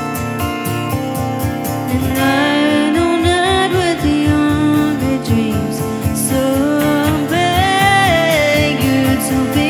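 Live duo performance of a folk-pop song: strummed acoustic guitar and electric guitar keep a steady rhythm, with a sung melody that rises and falls from about two seconds in.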